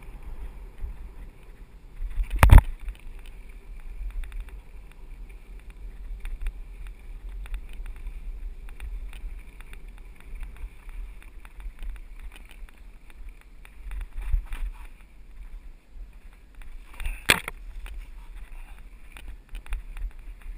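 Mountain bike rolling down a rough dirt trail, heard from a camera on the rider: a steady low rumble of wind and ground on the microphone with light rattling from the bike. Two sharp knocks stand out, one a couple of seconds in and one about three seconds before the end.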